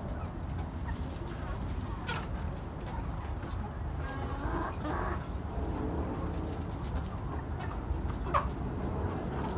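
Chickens clucking as they feed on pumpkin: short scattered clucks, a cluster of calls about halfway through, and a sharper, louder call near the end. A steady low rumble runs underneath.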